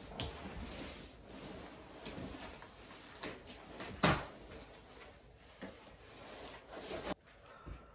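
A large cardboard headboard box scraping and rustling as it is slid off and handled, with several small knocks and one sharp knock about four seconds in.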